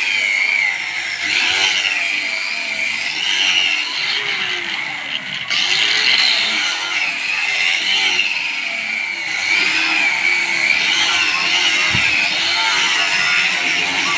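Electric angle grinder fitted with a sanding disc, running against a wooden beam to smooth it. Its high whine wavers up and down as the disc is pressed and worked along the wood.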